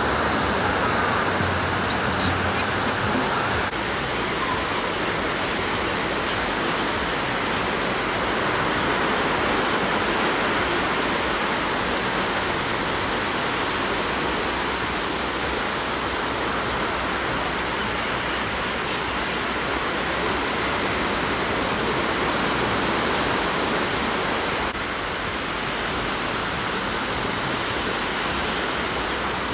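Ocean surf washing onto a sandy beach, a steady, even rush of noise.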